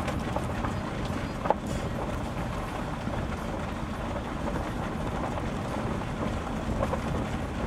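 Steady low rumble of a vehicle rolling slowly over a dirt road, with wind buffeting the microphone and a brief knock about one and a half seconds in.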